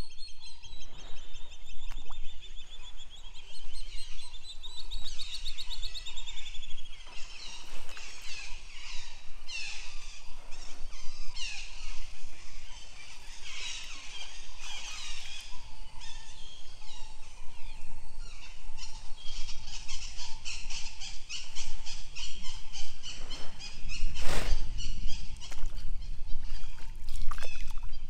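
Several birds chirping and trilling, over light water sounds from canoe paddling. A single sharp thump near the end is the loudest sound.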